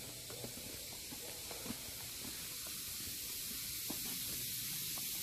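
A steady hiss that grows slowly louder, with a few faint clicks.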